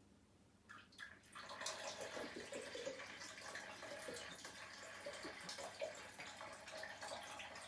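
Liquid poured from a bottle into a plastic measuring jug, a steady splashing trickle that starts about a second and a half in after a couple of light clicks.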